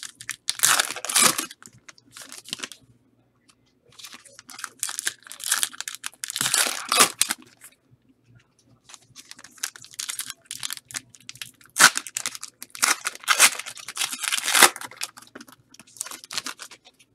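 Trading-card pack wrappers being torn open and crinkled. The tearing and rustling come in about five separate bursts with short pauses between.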